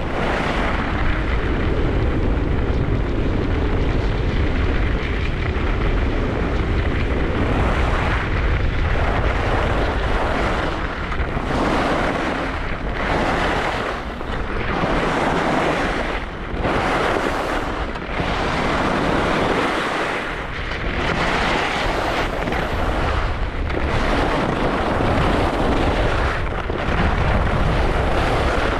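Wind buffeting the microphone of a camera carried down a ski slope, with skis hissing and scraping over the snow. From about a quarter of the way in, the snow noise swells and fades in a regular rhythm, about once every second or so: one surge per ski turn.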